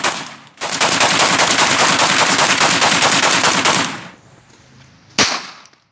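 Rifle fired in a fast, unbroken string of shots for about three seconds, just after the tail of an earlier string. One more single shot comes near the end.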